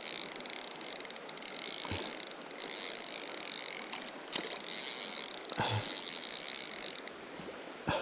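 Pflueger Trion spinning reel cranked to reel in a hooked, fighting fish: a steady gear whir that stops about seven seconds in, with a few short knocks along the way.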